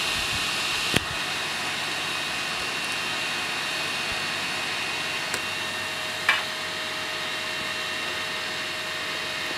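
Steady fan whir from a running Makergear M2 3D printer, with a sharp click about a second in and a short scrape about six seconds in, as the flexible sheet is lifted off the magnetic build platform.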